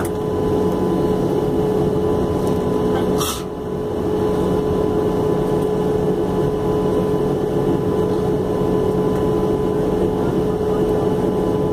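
Steady cabin drone inside a Boeing 737-800 taxiing with its CFM56-7B engines at idle, with a constant hum running through it. A brief hiss cuts in about three seconds in.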